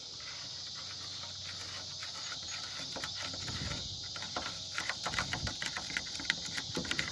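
Steady insect chorus, crickets shrilling, with scattered light clicks and scraping that grow more frequent from about halfway through.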